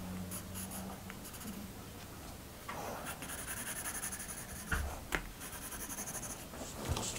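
Pencil scratching on drawing paper in quick, repeated short strokes, with a couple of sharp ticks about five seconds in.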